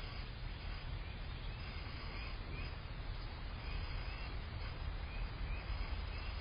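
Small birds giving faint, short, rising chirps about once a second over a steady low rumble of outdoor background noise.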